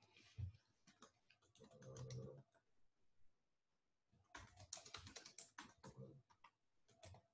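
Faint typing on a computer keyboard: a short run of key clicks about two seconds in, then a longer run from about four to six and a half seconds.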